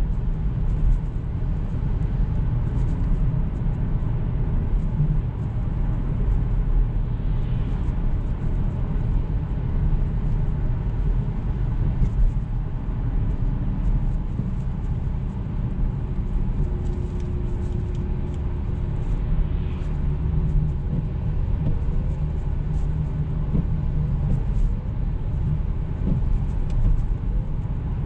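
Jaguar XF's 2.7-litre V6 diesel car driving at a steady pace: a continuous low rumble of engine and road noise.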